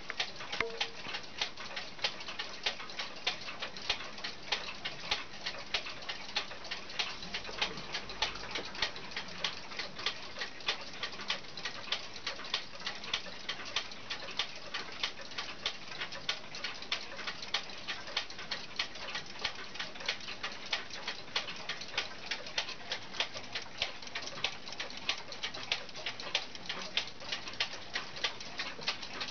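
Mauthe kitchen wall clock ticking with a quick, even tick-tock.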